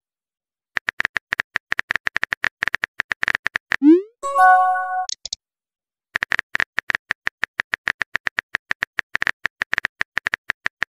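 Phone keyboard tap sounds from a texting app: a rapid run of clicks at about ten a second, then a short rising swoosh and a pitched message-notification chime about four seconds in, then another run of keyboard clicks.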